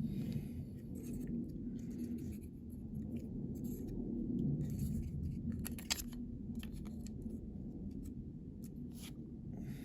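Light rubbing and a few small clicks as the interior parts of a diecast model car are handled and fitted into the casting.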